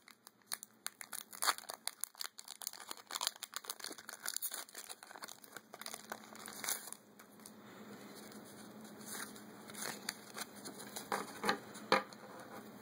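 Foil wrapper of a Pokémon trading-card booster pack crinkling as it is opened: dense crackling for about the first seven seconds, then quieter, with a few sharp clicks near the end.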